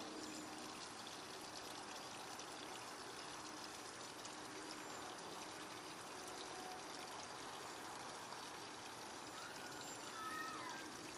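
Steady trickle of running water. A few short whistle-like notes rise and fall near the end.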